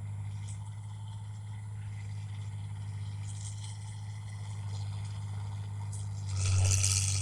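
Engine of a Tokai paddy machine running steadily with a low, even hum. About six seconds in, a louder rattling, rushing burst lasts about a second.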